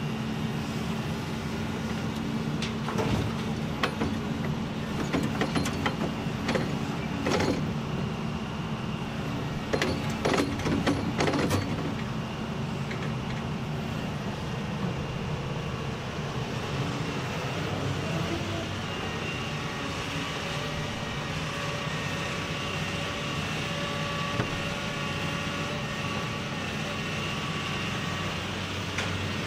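Excavator diesel engine running under load while a bucket of dirt and stones is dumped into a dump truck's body, giving a spell of clattering knocks in the first twelve seconds or so. The engine and hydraulics then run on steadily with a faint whine as the machine swings away.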